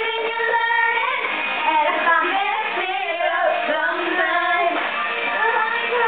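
Young girls singing along to a pop song with a guitar backing track.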